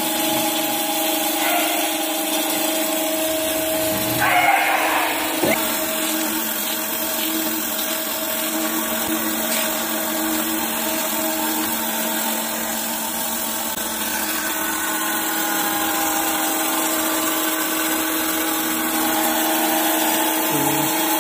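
Surface grinding machine running with a steady hum, its wheel refacing a toothed steel clutch plate under flowing coolant.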